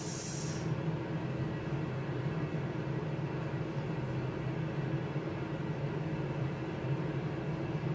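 Steady hum of an Aicook air fryer oven's fan running, with a short hiss at the very start.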